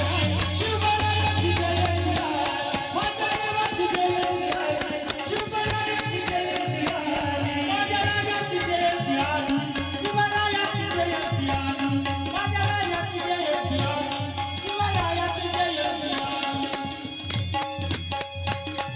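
Bhajan music: a melody carried over a steady beat of small cymbal and drum strokes.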